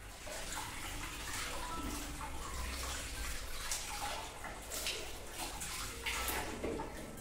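Tap water running into a bathroom sink, splashing irregularly as hands scoop it up to rinse after tooth-brushing. The water comes on just after the start.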